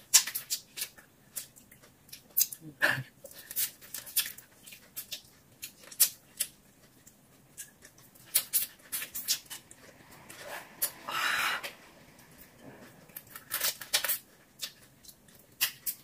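Close-miked eating of shrimp by hand: wet lip smacks and chewing clicks in irregular runs, with a longer noisy stretch of about a second just past the middle.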